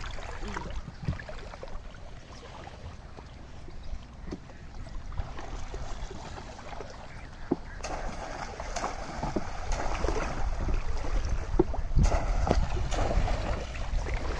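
Shallow water splashing and sloshing as hands and a bamboo polo fish trap churn the water beside a wooden boat, quiet at first and growing louder from about five seconds in, with scattered knocks.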